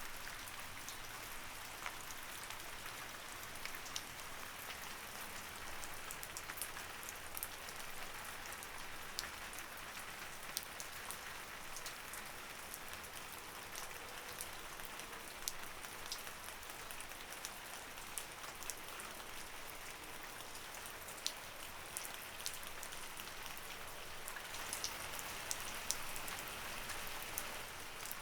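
Light rain falling steadily, a soft even hiss with many distinct drops ticking on surfaces.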